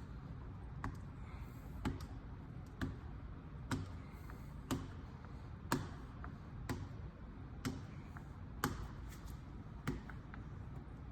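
Sharp, evenly spaced taps or ticks, about one a second, over a low steady hum.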